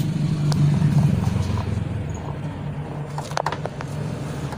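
Low steady engine-like hum that swells about a second in and then eases, with a few sharp clicks a little over three seconds in as a hand handles the TV's plastic cabinet.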